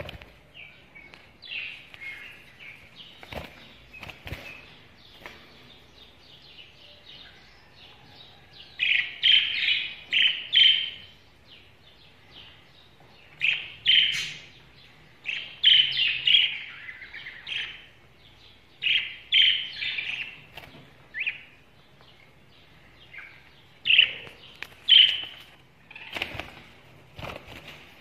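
Budgerigars chirping in quick bursts of high chirps, loudest through the middle of the clip, with a few sharp flutters of wings near the start and near the end.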